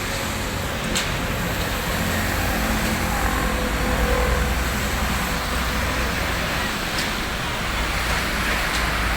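Vehicle engine running steadily, an even low rumble with no revving.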